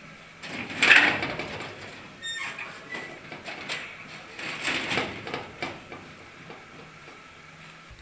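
Door in a sheet-metal gate being unlatched and opened: a loud metallic clatter about a second in, then a short squeak, and more clanking and scraping around five seconds in.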